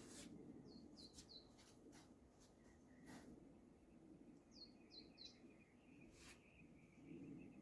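Faint bird chirping: two sets of three quick falling chirps, then a soft trill near the end. Underneath are a few soft clicks and a low faint rustle.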